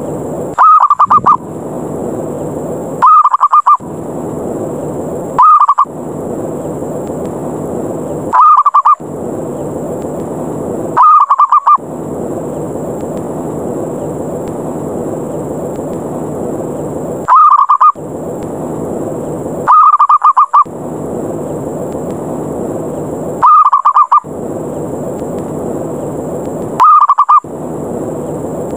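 Zebra dove (perkutut) calls played as a lure: short, rapid, trilling coos, the 'ngerot' challenge call that draws wild doves in to fight. They come nine times, every two to three seconds with one longer pause, over a steady low hiss that cuts out around each call.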